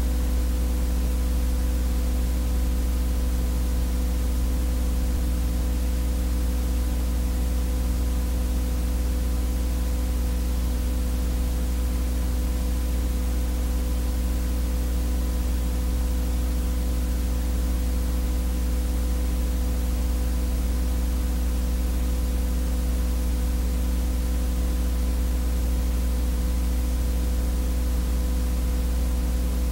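Steady low buzz with hiss on the soundtrack of a silent 8mm film transfer. A strong low hum and a few fainter steady tones run without change, with no sound from the filmed scene.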